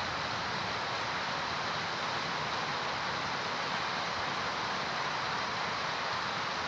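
Heavy rain pouring steadily on trees and garden foliage, an even, unbroken hiss.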